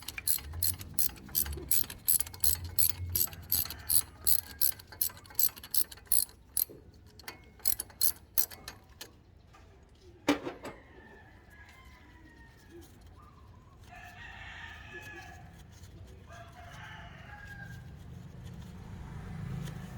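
Socket ratchet clicking in an even run, about three or four clicks a second, as a spark plug is loosened from the Kawasaki Barako II 175 engine. The clicking stops about seven seconds in, and a single sharp knock follows a few seconds later. Near the end a rooster crows twice.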